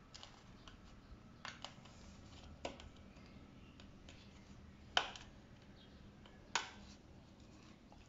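Plastic parts of a Hyundai Eon side mirror clicking and snapping as they are pried apart by hand. The clicks are scattered and sharp, the loudest about five seconds in and another about a second and a half later.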